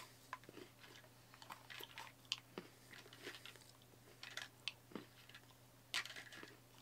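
Faint chewing of bite-sized chocolate pellets with crisped rice inside: soft crunches and small clicks, scattered and irregular.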